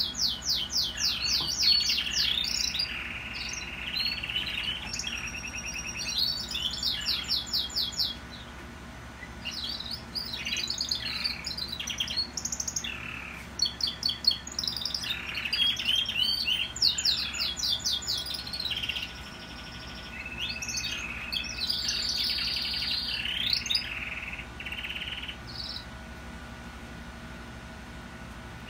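Domestic canaries singing in bouts of fast rolling trills and held whistled notes, with short pauses between phrases: their song coming back after the moult.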